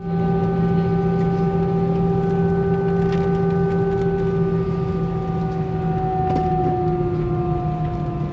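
Jet airliner engines running at idle, heard inside the cabin as the plane taxis: a steady hum with several whining tones over a rushing noise. The tones dip slightly in pitch about six to seven seconds in.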